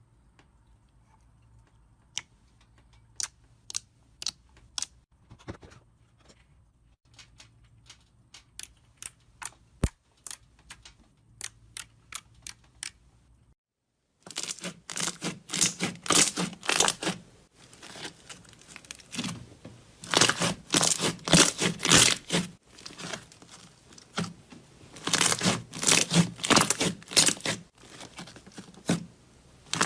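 Slime being squeezed and pressed by hand: sparse, sharp clicks and pops for about the first half. Then, after a cut, dense crackling crunches come in quick clusters and are louder.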